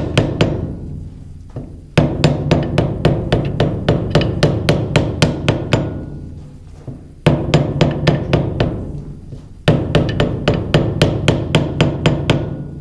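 Small hammer tapping a new seal down into its bore on a Vermeer 502 stump grinder's clutch housing: quick runs of light, even taps, about four or five a second, with short pauses as the hammer works around the seal.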